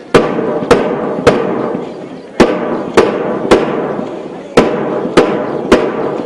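Sharp percussive beats in sets of three, about half a second apart with a short pause after each set, keeping time for a group marching drill, over a steady background hubbub.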